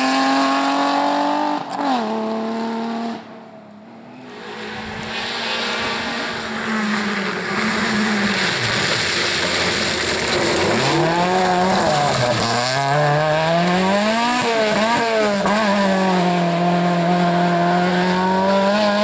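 Peugeot 206 rally car's engine at high revs on a gravel stage, its pitch dropping and climbing again several times as the driver lifts and changes gear, then holding high and steady as the car passes and pulls away. Near the start, another rally car's engine fades as it drives off, with a short quieter gap.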